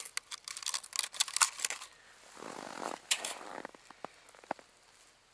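Crinkling and rustling of a plastic packet as hands unwrap and handle fishing tackle, a dense crackle for the first two seconds, then a short rustle and a few sharp ticks.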